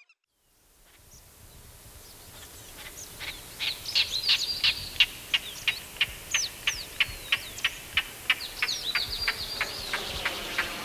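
Rainforest ambience fading in: a steady hiss of insects under a bird calling in rapid, repeated sharp chirps, about three a second.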